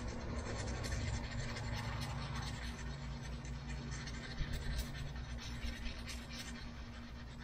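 Paint being scraped and rubbed off a metal engine bracket by hand: a steady, rapid scratching. The bracket is being cleaned to bare metal for an engine ground connection.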